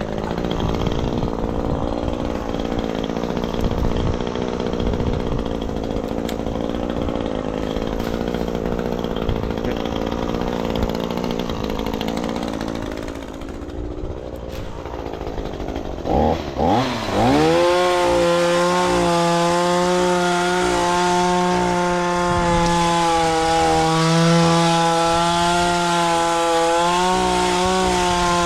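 Chainsaw engine idling, then about sixteen seconds in it is blipped twice and revved up to full throttle, running steadily at high speed for the rest of the time.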